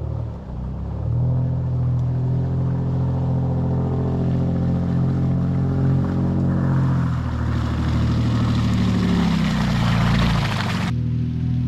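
Nissan Frontier pickup truck driving off-road, its engine running at a fairly steady pitch. From about seven seconds in, a rushing noise builds over it, then cuts off abruptly near the end.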